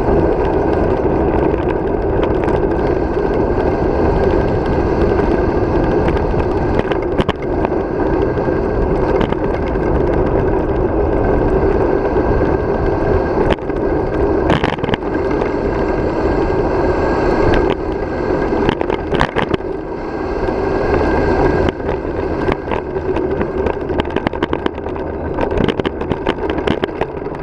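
Wind rushing over the microphone of a bike-mounted camera and bicycle tyres rolling on asphalt during a downhill ride: a steady loud rush with scattered sharp clicks and rattles.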